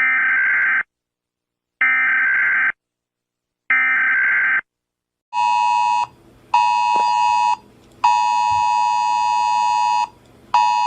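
Emergency Alert System tones. First come three short, identical buzzing digital data bursts (SAME code). About five seconds in, the harsh two-tone EAS attention signal starts, sounding in on-off blasts of one to two seconds.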